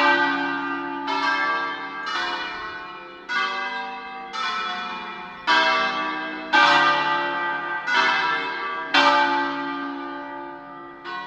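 Church bells ringing: several bells of different pitch struck one after another, about once a second, each ringing on and overlapping the next. There is a longer pause before a last stroke near the end.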